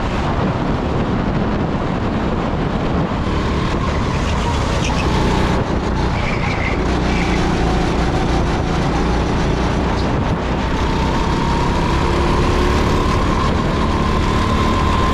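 Rental go-kart engine running hard under the seat, heard from onboard. The engine note drops through a slower corner about six to nine seconds in, then climbs again as the kart accelerates out.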